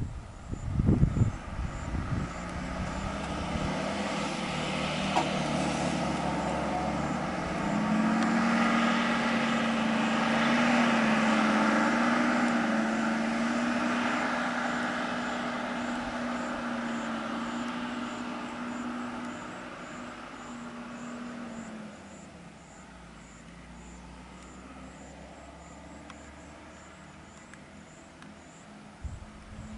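A vehicle engine running: a steady droning note that grows louder over several seconds and then fades away, with a few knocks near the start.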